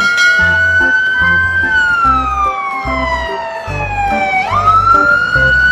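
Fire engine siren wailing: a high tone that drifts slowly down over about three seconds, then sweeps quickly back up about four and a half seconds in. Background music with a low, steady beat plays underneath.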